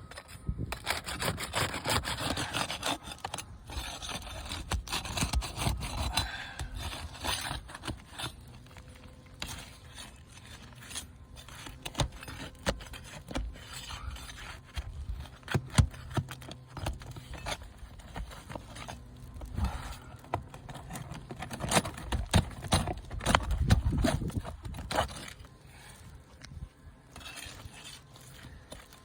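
Asphalt roof shingles being pried up and worked by hand: irregular scraping and rubbing with many sharp clicks and knocks.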